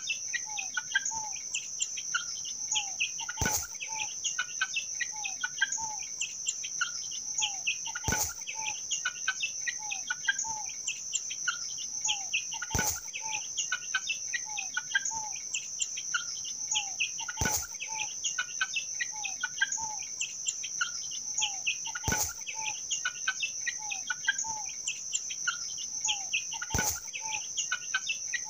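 Young naked-neck chickens peeping and calling softly while they peck at feed, over a steady high insect buzz. A sharp click recurs about every four to five seconds.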